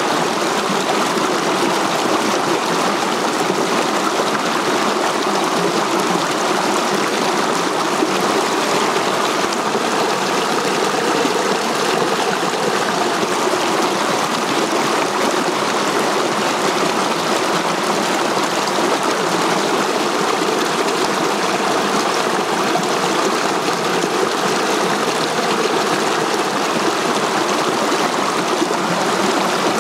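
Rocky stream rushing and splashing over boulders in small cascades: a steady, even rush of water.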